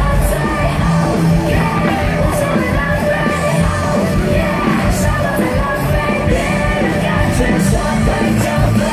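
Loud music with singing, with people in the crowd yelling over it, while fireworks burst. A few short sharp crackles stand out now and then.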